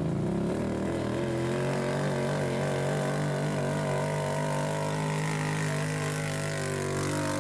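Can-Am Outlander 800 ATV's V-twin engine running hard at a steady, high pitch under heavy load as it drags a weight sled down the pulling track.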